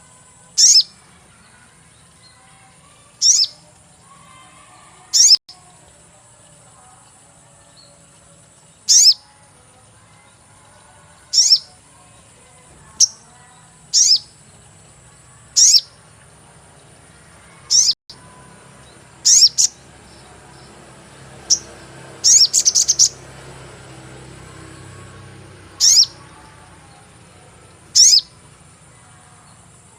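Sogon bird chirping 'cuit cuit' as a lure call: short, high, downward-sweeping chirps, one every two to three seconds, with a quick run of several about two-thirds of the way in. A steady high-pitched tone runs underneath.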